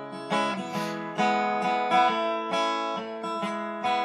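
Acoustic guitar music, with picked and strummed notes ringing on.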